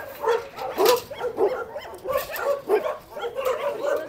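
Dogs barking in a quick run of short barks, about two to three a second.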